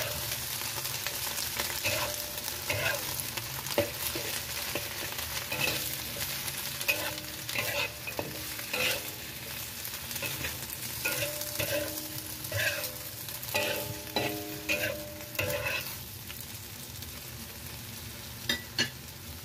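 Metal spatula scraping and knocking against a wok, stirring and tossing vegetables over a steady sizzle. The strokes ring briefly and come fastest in the middle; the stirring stops near the end, leaving the sizzle.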